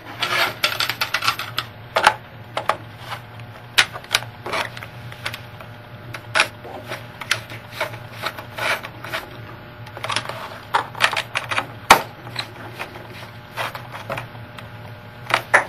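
Irregular plastic clicks, taps and scrapes as the Dell Latitude C610's memory access panel is handled and fitted back onto the laptop's underside, with a cluster of quick clicks near the end. A low steady hum runs underneath.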